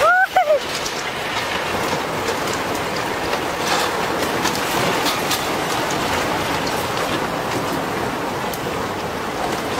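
Steady rushing of tsunami floodwater through a wrecked town, carrying debris, with scattered cracks and snaps. At the very start there is a brief wavering, pitched cry that rises and falls.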